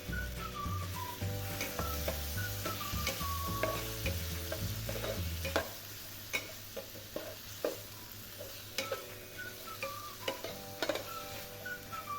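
Frog pieces stir-frying in a hot pan, sizzling, with frequent clicks and scrapes of a utensil stirring against the pan.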